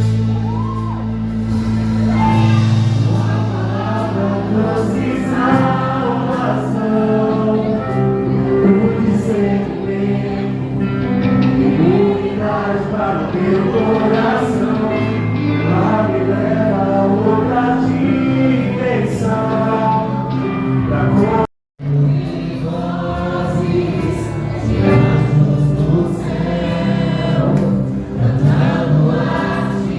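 A congregation and worship band singing a gospel praise song, voices together over sustained bass and keyboard chords. The sound cuts out for a split second about two-thirds of the way through.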